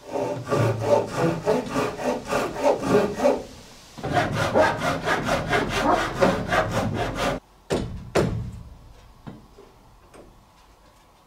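Hand saw cutting through a wooden framing board in two quick runs of back-and-forth strokes, about four a second, with a short pause between them, followed by a few sharp knocks. The board is being trimmed down so it sits on the midline.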